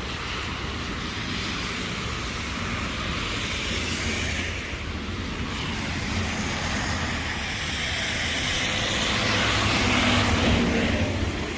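Street traffic on wet, slushy roads: a steady hiss of tyres with a low rumble, swelling as a vehicle passes near the end.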